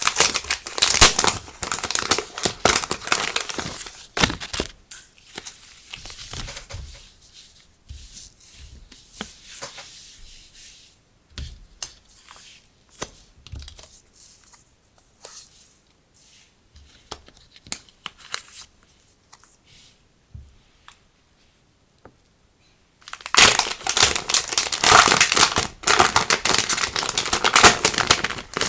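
Crinkling and rustling of plastic packaging and paper being handled and opened, with dense crinkling at the start, sparser rustles and clicks through the middle, a brief silence, then dense crinkling again near the end.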